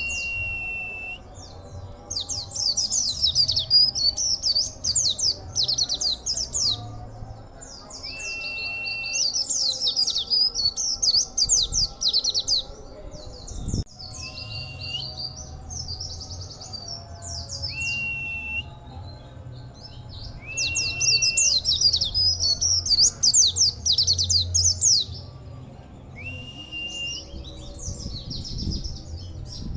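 A white-eye (pleci) singing. Rapid, chattering high warbling bursts of about three seconds come three times, with short, level whistled notes recurring in between.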